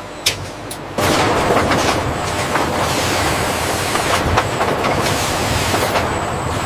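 Loud, dense mechanical clatter of running machinery, rattling like train wheels, starting suddenly about a second in after a few sharp clicks and easing near the end.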